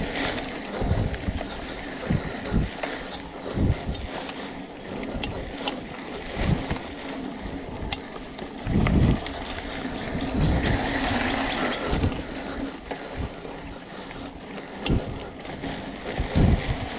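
Hardtail mountain bike (BMC Twostroke AL 2) riding a dirt singletrack: wind noise buffeting the microphone over a rolling rush, with frequent dull thumps from bumps and sharp rattling clicks from the bike every few seconds.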